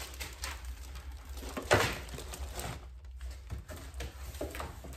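Cardboard and plastic packaging rustling and knocking as a bagged aluminium undershroud panel is lifted out of its box, with one sharp knock a little under two seconds in.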